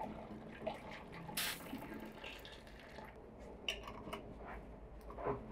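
Hot pomegranate juice trickling and dripping through a plastic funnel into a glass bottle, with a short splashing hiss about a second and a half in. Then several light clicks as a metal cap is screwed onto the bottle, sealing it while still hot.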